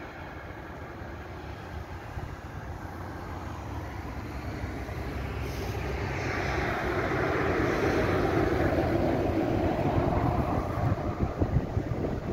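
A vehicle passing by: a steady rushing noise that swells to its loudest about eight to ten seconds in and then falls away, with wind buffeting the microphone near the end.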